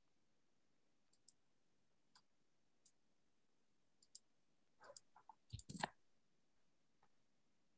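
Near silence with a few faint, sharp clicks spread apart, then a brief flurry of clicks and handling noise ending in a short thump about five and a half seconds in.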